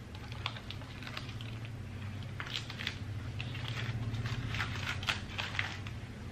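Boiled leaf wrapping of a bánh chưng rustling and crackling in quick, irregular little clicks as hands peel it open, busiest in the middle, over a steady low hum.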